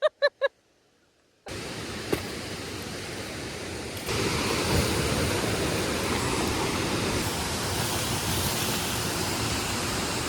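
Steady rush of flowing water, an even hiss-like roar that gets louder about four seconds in. It starts suddenly after a few clipped bits of voice and a moment of silence.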